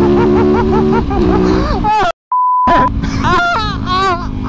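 Yamaha YZ450FX four-stroke single-cylinder engine running steadily under a rider's voice picked up in the helmet. A little over two seconds in, the sound cuts out for a short censor bleep.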